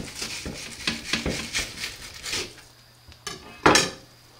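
All-steel kitchen knife slicing a yellowtail fillet on a plastic cutting board: a run of short scraping strokes, then a louder clack near the end as the knife is laid down on the board.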